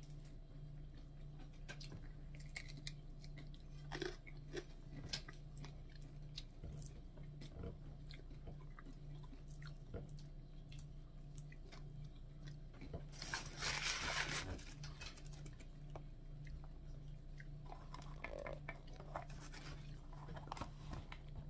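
Someone chewing crisp fried dried fish close to the microphone: soft crunches and small crackling clicks, with one longer, louder crunchy burst about two-thirds of the way through. A steady low hum runs underneath.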